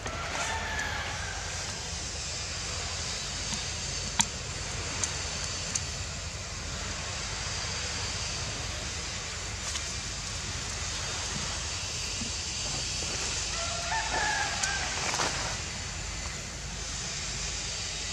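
Steady outdoor hiss with a low rumble, broken by a sharp click about four seconds in. Short animal calls come near the start and again for about two seconds around the fourteen-second mark.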